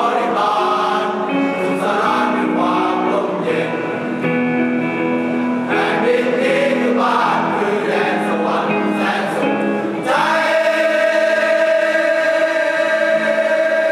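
Music with a choir of voices singing, settling into a long held chord about ten seconds in.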